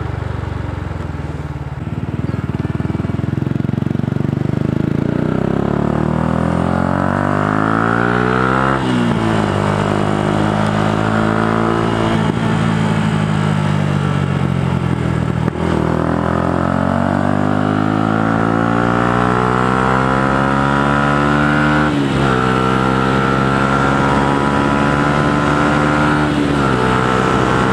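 Yamaha YZF-R125's 125 cc single-cylinder four-stroke engine, fitted with an aftermarket Devil exhaust, accelerating up through the gears. The revs climb and then drop suddenly at each upshift, four times across the ride.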